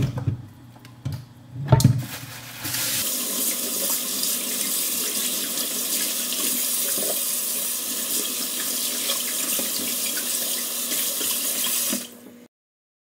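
Kitchen tap running into a stainless steel sink: a steady rush of water that starts about three seconds in and stops suddenly near the end. Two knocks come before the water starts.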